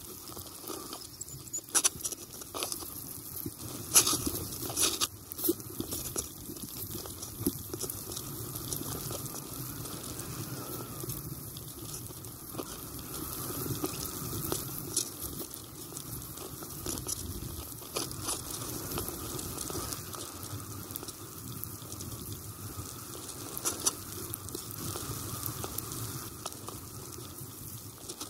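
Bicycle tyres rolling over packed snow and slush: a steady crunching hiss with frequent sharp clicks and knocks from bumps.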